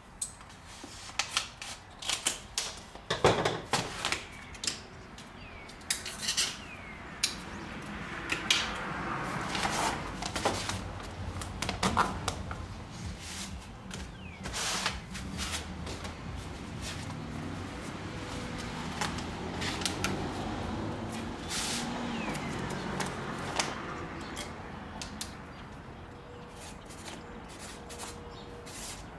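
Objects being handled on a work surface: scattered clicks, knocks and light clatter, most frequent in the first half and sparser later.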